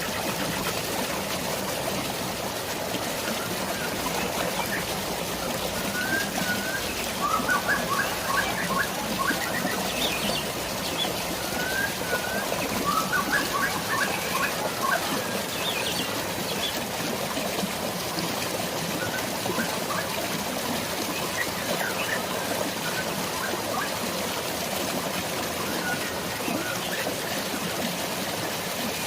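Steady rush of flowing water with birds chirping over it: two busy runs of quick chirps in the first half, then scattered calls.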